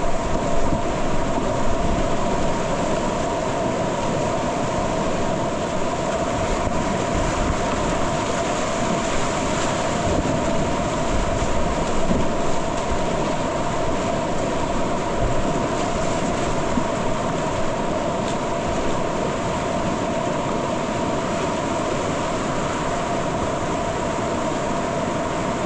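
Whitewater rapids rushing close around a kayak: a loud, steady, unbroken noise of churning river water.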